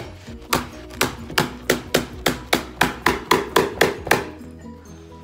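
Corded electric staple gun firing staples through carpet into a wooden stair, a quick run of about a dozen sharp shots, roughly three a second, that stops a little after four seconds in.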